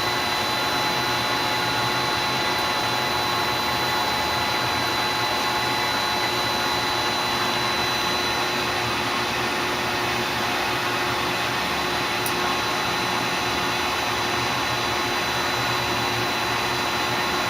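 Tsugami BS-20BII CNC Swiss lathe with its live tool spindles running at 2,000 RPM: a steady, even whir with several constant tones over a hum, unchanging throughout.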